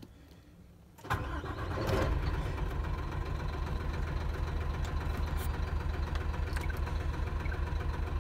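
Hino Profia truck's diesel engine starting about a second in, building for about a second as it catches, then settling into a steady idle.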